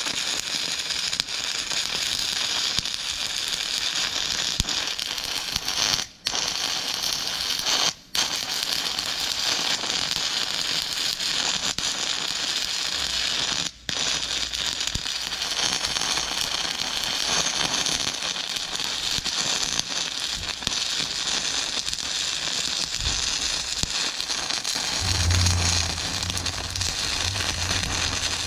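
Stick welding arc crackling steadily as an electrode burns, laying weld onto a foundation-drilling auger's pilot bit. The arc breaks off briefly three times, about 6, 8 and 14 seconds in, and a low hum joins near the end.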